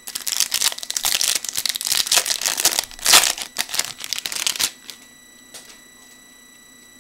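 Trading card pack wrapper crinkling and tearing for about four and a half seconds, then stopping. A faint steady high-pitched whine from a PC fan runs underneath.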